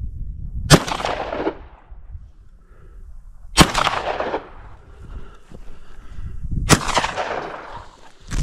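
Three shotgun shots about three seconds apart, each followed by a long echoing tail. The hunter is shooting at wild boar.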